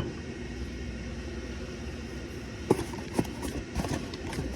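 Steady low workshop rumble with a few short light clinks and knocks, from engine parts and tools being handled during a teardown.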